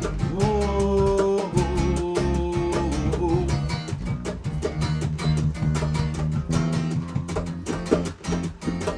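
A rock band playing an instrumental break led by guitar, over bass and a steady beat. A long held note runs through the first few seconds.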